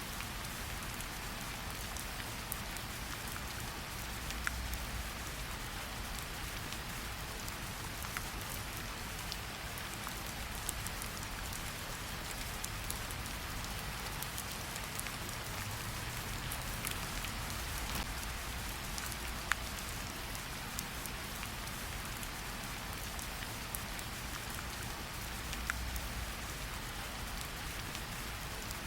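Steady rain falling, with many scattered sharp drop ticks over an even hiss.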